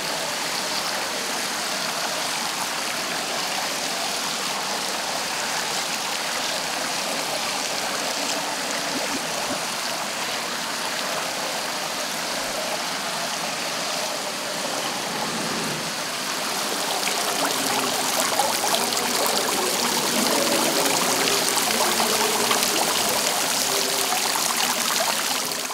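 Water splashing and trickling steadily in a tiled indoor fountain, getting a little louder about two-thirds of the way through.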